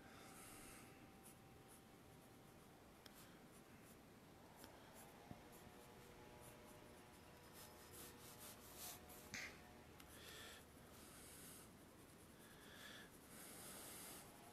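Faint scratching of a pencil on paper, in short strokes with pauses between them.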